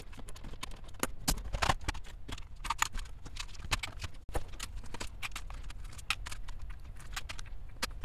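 Irregular plastic clicks, taps and light knocks, several a second, as a Compaq Portable's Key Tronic foam-and-foil keyboard case is handled and opened up.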